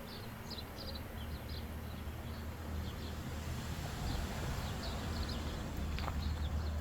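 Outdoor garden ambience: small birds chirping faintly and intermittently over a steady low rumble.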